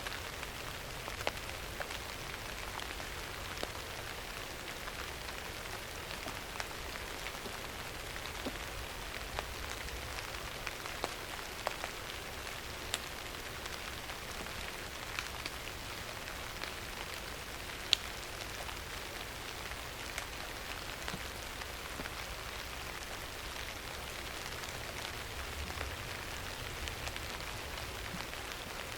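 Steady rain falling on a surface, an even hiss with scattered sharper drop ticks; one drop lands noticeably louder about halfway through.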